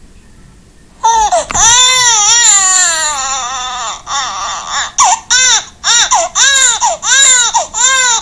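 A baby crying: after a second of quiet, a long wavering wail, then from about five seconds in short repeated cries, about two a second.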